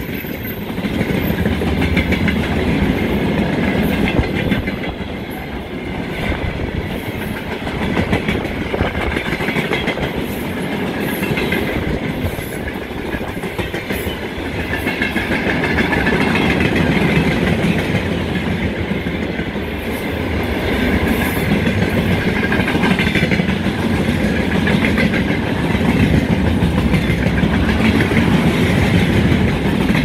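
Freight train wagons rolling past at speed: a continuous heavy rumble of steel wheels on the rails, with repeated clicks and knocks as the wheels cross rail joints.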